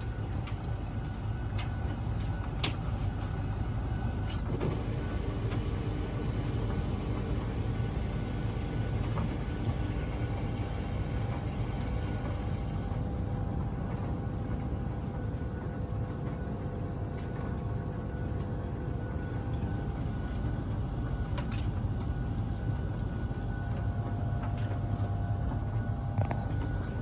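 Beko DSX83410W condenser tumble dryer running, with a steady low hum, a few faint steady tones and scattered small clicks and rattles. This is the loud noise from the condensing tank area that the owner reports as a fault.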